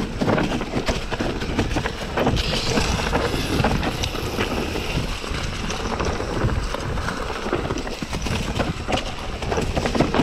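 Wind buffeting the microphone, with a constant rattle and knocking of a bike rolling over a stony trail.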